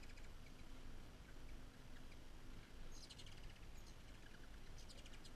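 Ruby-throated hummingbirds chattering around a feeder: two short bursts of rapid, high-pitched chips, about three seconds in and again near the end, over a faint background hiss.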